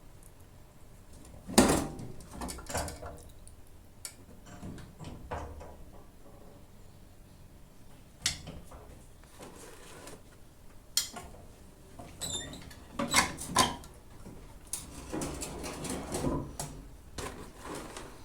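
Scattered knocks and clatter of hard objects being handled and set down, with the loudest knock about a second and a half in, a few more sharp knocks later, and a stretch of rustling handling near the end.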